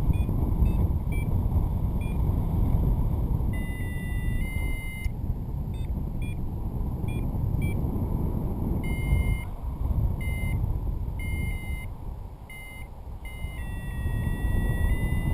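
Paragliding variometer beeping over wind buffeting the microphone: runs of short, quick high beeps, with longer held tones stepping in pitch around the middle and again near the end, the vario registering climb.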